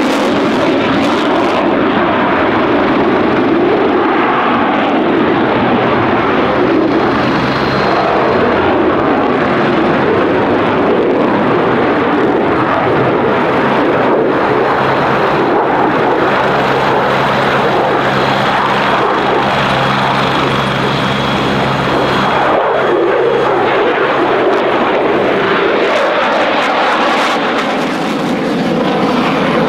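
Eurofighter Typhoon's twin jet engines with afterburners lit: a loud, steady jet roar that goes on throughout, easing slightly near the end.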